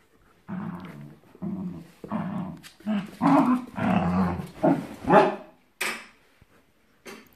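Dogs play-growling and barking in a run of short bursts that grow louder toward the middle. Two short sharp sounds follow near the end.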